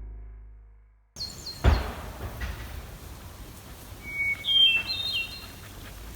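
A song with guitar fades out over the first second, then outdoor ambience: short high bird chirps, a single thump, and a little later a quick run of bird call notes.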